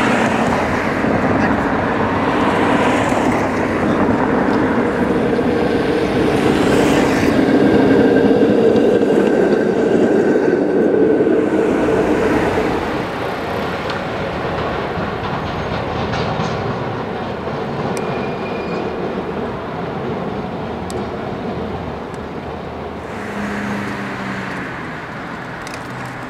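Historic electric streetcar running along its rails, getting louder to a peak about eight seconds in and then fading. After about thirteen seconds it gives way to quieter, steady street traffic.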